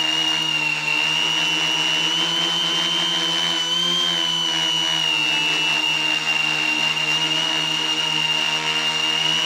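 Quadcopter's electric motors and propellers whining steadily, heard up close from the camera mounted on the craft. The pitch rises briefly about four seconds in and settles back.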